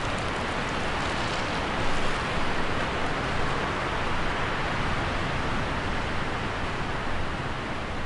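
Harsh wind blowing with leaves rustling: a steady rushing hiss that swells in a few gusts, the strongest about two seconds in.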